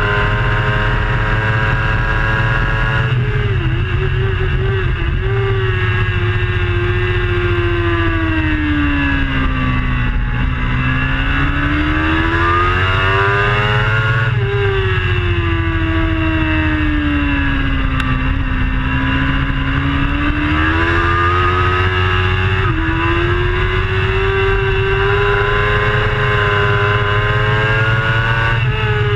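Onboard sound of a racing superbike's engine at speed, with a heavy rush of wind on the microphone. The engine pitch drops sharply about three seconds in. It then sinks and climbs again in two long swoops as the bike goes through the corners, with a sudden step near the end before it climbs once more.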